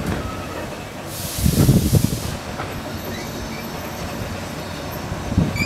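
15-inch-gauge steam train running over the rails on a curve, with a burst of steam hiss lasting about a second, starting about a second in, and a faint high squeal from the wheels.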